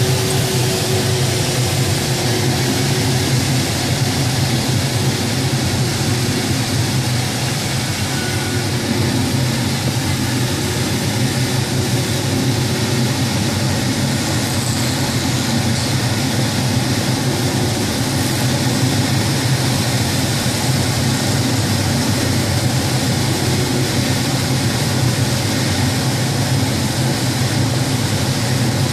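Steady rush of air over a glider's canopy in flight, a loud, even cockpit wind noise.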